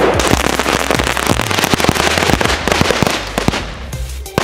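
A firework going off on the ground: a loud burst of crackling with many rapid sharp pops, thinning out near the end.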